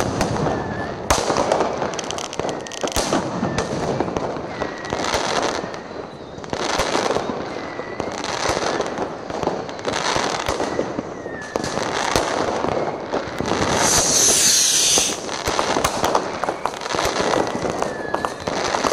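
New Year's Eve fireworks: rockets and firecrackers going off without pause in a dense run of bangs and crackles, with a louder high hiss about fourteen seconds in.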